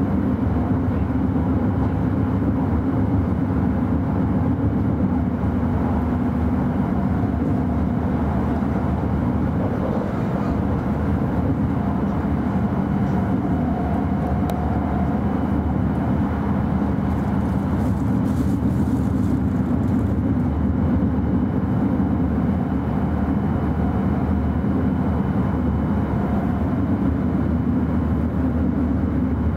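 Running noise of an E5 series Shinkansen at speed, heard inside the passenger cabin: a steady low rumble that stays even throughout.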